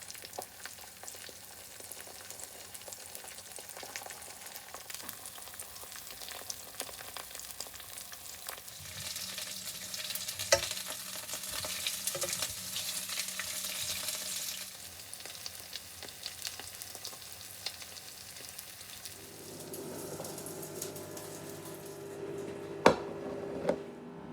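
Food frying and sizzling in a pan, with steady crackling that grows louder for about five seconds in the middle and occasional sharp knocks of a utensil against the pan. A steady low hum comes in about two-thirds of the way through.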